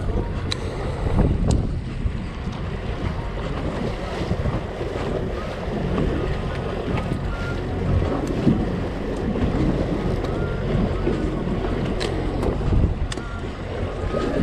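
A fishing boat's engine running steadily while trolling, with wind buffeting the microphone and water washing past the hull. A few sharp ticks sound near the start and near the end.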